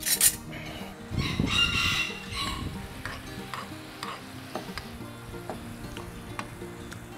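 Honey-soy sauce bubbling in a frying pan, with a metal spoon stirring and clinking against the pan. A sharp clatter comes right at the start. A rooster crows briefly about a second in.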